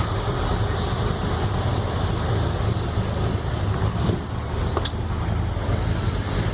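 Car engines running at low speed, a steady low rumble, with one short click near the end.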